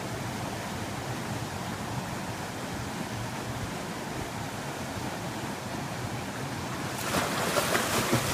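Brook water running steadily, then from about seven seconds in a louder, choppy splashing as a person plunges into the water of the swimming hole.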